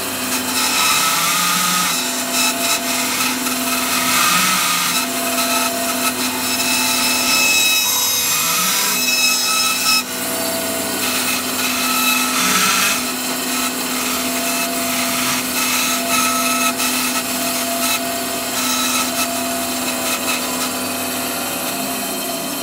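Benchtop bandsaw running, its blade cutting through an oak V-block jig and the .50 caliber brass cartridge case clamped in it. The cutting noise comes and goes in several stretches over the steady hum of the motor.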